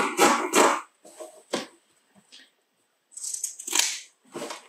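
Scissors cutting through coarse hessian fabric: a string of separate crunchy snips and rasps with short pauses between them.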